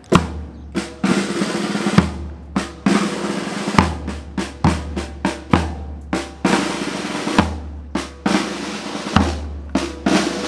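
Drum-led music: snare rolls and rimshots, with a heavy drum hit about every two seconds over a held bass note.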